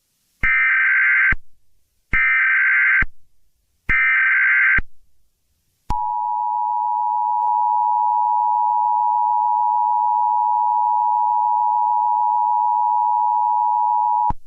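Emergency Alert System alert tones. First come three short, buzzy bursts of the digital SAME header data. About six seconds in, the steady two-tone attention signal starts, holds for roughly eight seconds and cuts off abruptly near the end.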